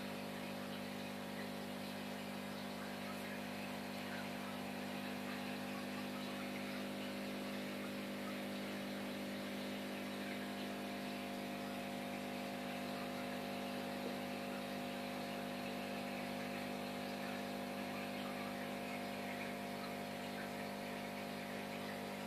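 Steady hum of an aquarium air pump, with the hiss and fizz of fine air bubbles rising through the tank water.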